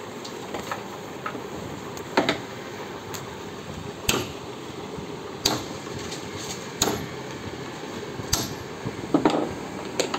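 About seven sharp knocks, irregularly spaced one to two seconds apart, over a steady background noise. The loudest come about two seconds in and near the end.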